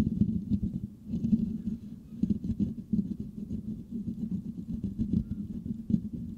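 Fingertips scratching and rubbing the metal mesh grille of a Blue Yeti microphone, a dense run of quick, irregular rasping strokes with a low, rumbling tone.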